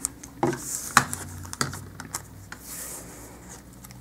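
Paper rustling and a few light clicks and taps as a folded paper doily is handled and a plastic tape runner is picked up and moved on the craft mat; the clicks come in the first two seconds, then only soft rustling.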